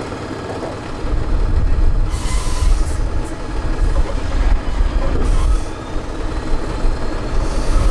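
Tatra 8x8 trial truck's diesel engine working hard at low revs while climbing a steep dirt slope: a deep, steady rumble. Three short bursts of hiss break through it, about two, five and seven and a half seconds in.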